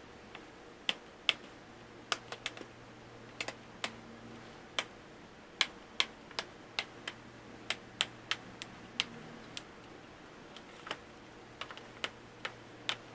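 Sharp, irregular plastic clicks, about two a second, as a Dell Chromebook 3100 2-in-1's lid, casing and keys are handled.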